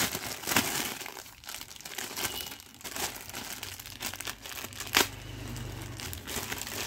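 Clear plastic packaging bag crinkling and rustling as hands open it, in irregular crackles, with one sharp snap about five seconds in.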